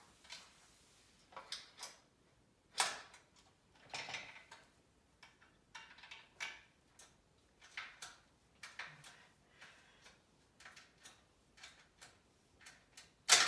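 Scattered light metallic clicks and taps as a wrench and bolts are worked on the steel frame of a DeWalt rolling table saw stand, with a louder knock about three seconds in and a sharp clank near the end.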